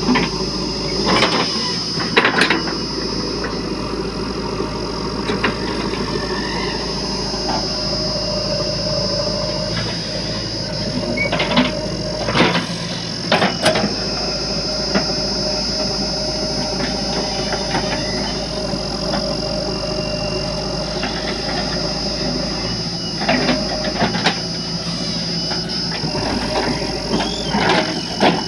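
JCB 3DX backhoe loader's diesel engine running steadily under load, with a steady high whine over it, as the backhoe digs soil and swings to dump it. Sharp metallic clanks and knocks from the bucket and arm come in clusters near the start, around the middle and near the end.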